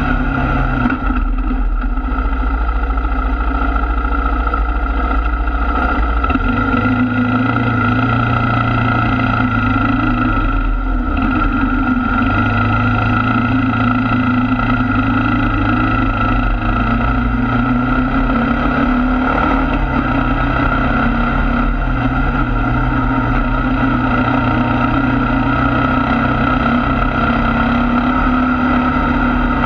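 ATV engine running steadily at riding speed on a dirt trail, its low note shifting a few times as the throttle changes.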